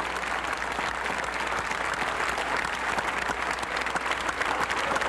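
A large crowd applauding, a dense, steady clapping.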